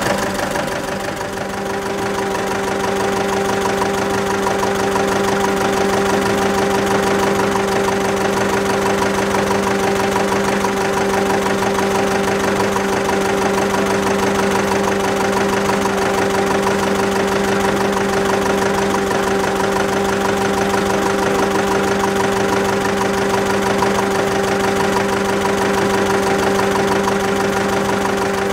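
Vintage two-cylinder engine running steadily at an even idle, with a steady hum and a fast regular beat.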